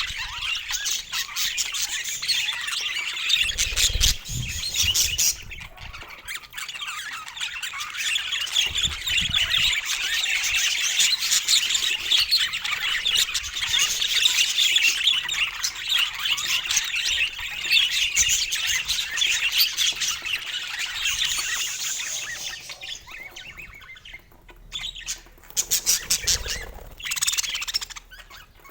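Budgerigars chattering, warbling and chirping continuously in a busy stream, dying down near the end. A couple of low thumps come through, about four seconds in and again near the end.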